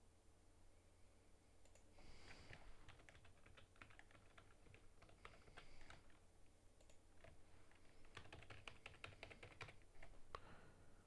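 Faint typing on a computer keyboard: quick, irregular runs of key clicks, starting about two seconds in.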